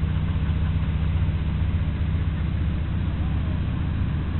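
Scania 164L's 16-litre V8 diesel running under way, a steady low rumble with a fast, even pulse.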